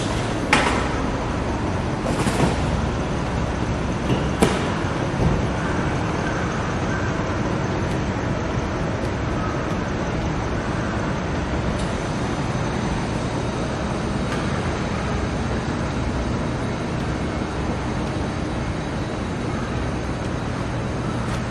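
Steady urban road-traffic noise, with a few short sharp knocks in the first few seconds.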